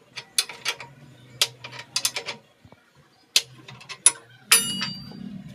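Tools and workpiece being handled at a woodturning lathe: a run of sharp clicks and knocks, then a ringing metallic clink about four and a half seconds in, followed by a low steady hum.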